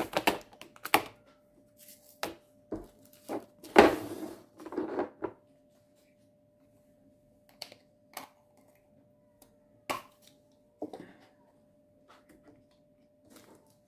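Clear plastic storage box and small bead containers being handled: a quick run of plastic clicks and knocks in the first five seconds, loudest about four seconds in, then scattered light taps and clicks.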